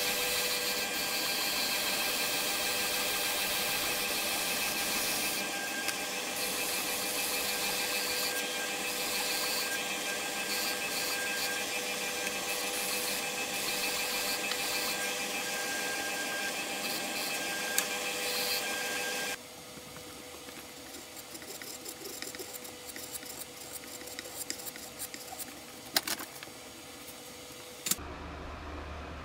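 Spindle sander motor running steadily with a whine, its red sanding sleeve grinding the curved edge of a plywood template. About two-thirds of the way in the machine sound cuts off, leaving quieter rustling with a few sharp clicks.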